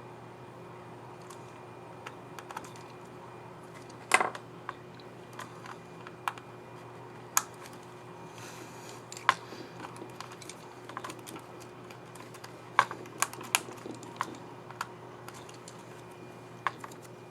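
Irregular sharp plastic clicks and snaps from a Dell Inspiron 15 3583 laptop keyboard as a keycap and its scissor mechanism are fitted and pressed, over a faint steady hum.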